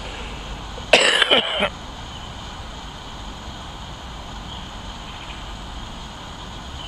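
A short vocal sound from a person, like a cough or a brief word, about a second in, then a steady low background rumble.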